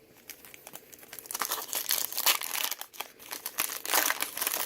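Trading-card pack wrapper being torn open and crinkled by hand, a dense crackling in two spells, the first starting about a second in and the second in the last second and a half.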